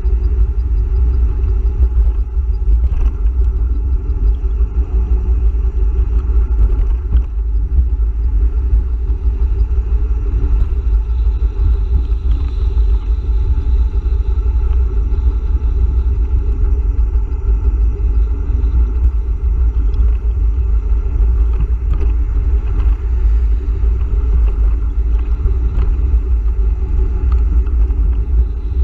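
Steady, loud wind rumble on the microphone of a camera mounted on a moving electric bicycle, mixed with the noise of highway traffic passing alongside.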